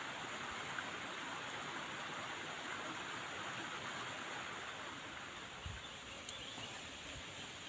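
Steady, even rushing outdoor ambience that eases slightly in the second half, with a faint soft thump and a few small ticks near the end.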